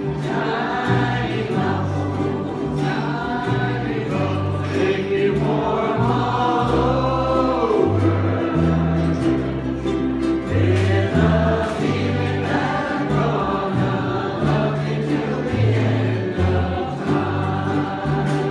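Ukulele band strumming and singing together, a group of voices carrying the melody over a steady bass line.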